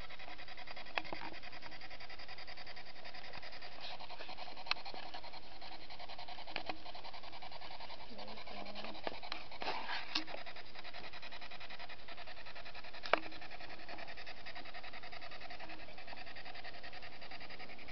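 Spirit box sweeping through radio frequencies: a steady hiss of static broken by scattered clicks, the sharpest about 13 seconds in, and a few brief scraps of broadcast sound.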